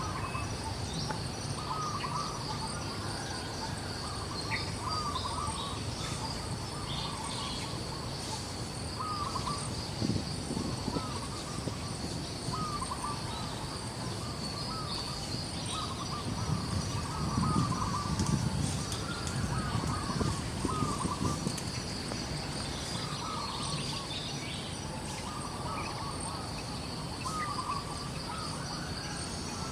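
Outdoor ambience: a steady high insect drone with short bird calls repeating every second or two. A low rumbling noise swells for a few seconds past the middle.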